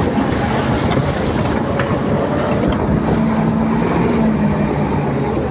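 A motor vehicle's engine running steadily, with wind rushing over the microphone.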